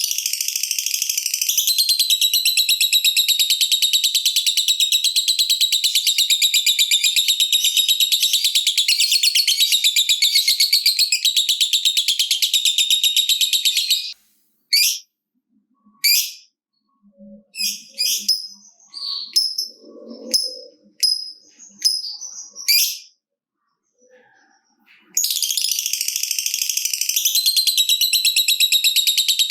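Lovebird giving its long, rapid chattering trill ('ngekek panjang'), a high rattling series of very fast notes. It breaks off about halfway through into a run of short separate chirps, then resumes near the end.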